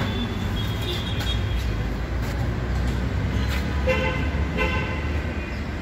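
Steady street traffic rumble with car horns tooting, the clearest two short toots about four and four and a half seconds in.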